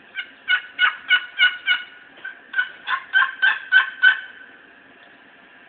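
Mahogany and purpleheart short box turkey call played on its right side: a series of short yelping notes, about three a second, in two runs with a brief break about two seconds in.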